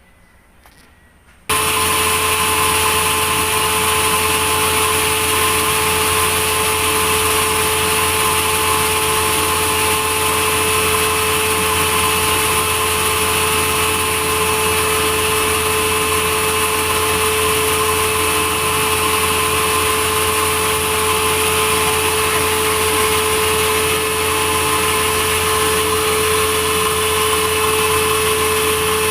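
Sawmill machinery running: a loud, steady machine drone with a constant whine. It starts abruptly about a second and a half in and holds unchanged.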